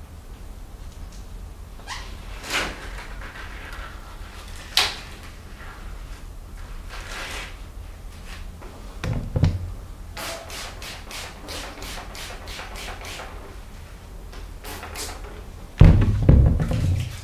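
Thin disposable examination gloves crinkling and snapping as they are peeled off inside out, with a quick run of crisp crackles partway through. Near the end a loud thump and clatter as a plastic spray bottle of disinfectant is grabbed from a wooden desk.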